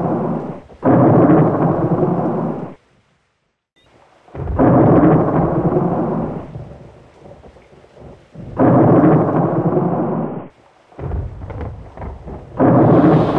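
Close thunder: several claps, each breaking sharply and rumbling for about two seconds before cutting off suddenly, with a moment of dead silence about three seconds in.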